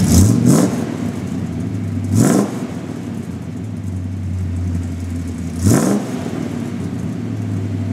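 1967 Dodge Charger V8 heard at the tailpipe of its true-dual 2.5-inch stainless steel exhaust with Magnaflow mufflers. The engine is blipped three times, at the start, about two seconds in and near six seconds. Each rev rises quickly and falls back to a steady low idle.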